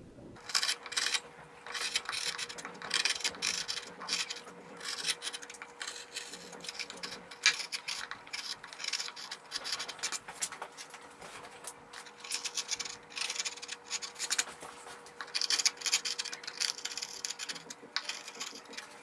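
A sharp 10 mm V-gouge pushed by hand through wood, carving deep grooves to separate tufts of hair. It makes a series of short, irregular scraping cuts.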